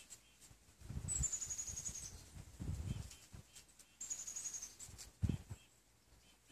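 A small songbird calling, a quick run of thin, very high notes dropping slightly in pitch, heard twice, with faint low rumbles in between.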